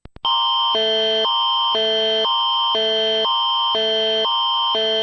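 Canadian Alert Ready attention signal: a loud electronic alarm tone that switches every half second between a higher chord and a lower chord over a constant high tone. It starts abruptly just after a couple of faint clicks.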